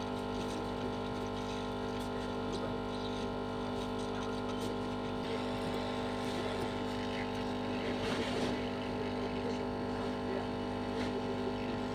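A steady machine hum made of several fixed tones, with a few faint clicks.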